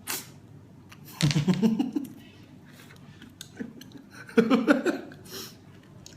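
A man laughing in two short bursts, about a second in and again past the four-second mark, with a short sharp slurp at the very start as he sucks a river snail from its shell.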